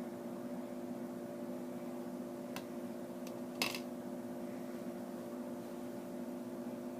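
Steady background hum of a running appliance or fan, with a faint click about two and a half seconds in and a short tap about a second later.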